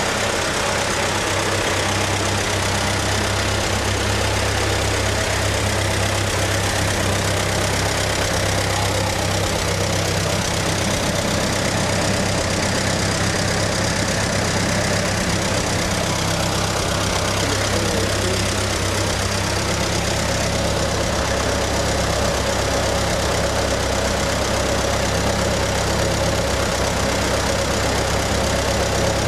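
Ferguson TE-A20 tractor's four-cylinder petrol engine running steadily at a low idle.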